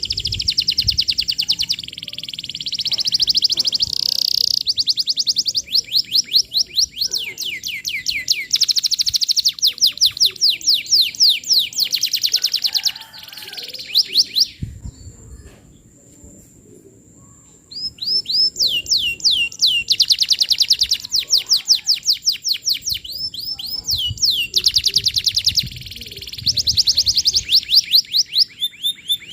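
Domestic canary in full song ("gacor"), singing fast trills of rapid repeated high notes, many sweeping downward. It sings in long bursts, with a pause of a few seconds about halfway through.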